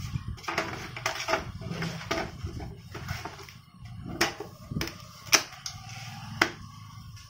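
Plastic clicks and knocks as the outer covers of a Canon LBP 2900B laser printer are pressed and snapped back into place, with several sharper snaps in the second half.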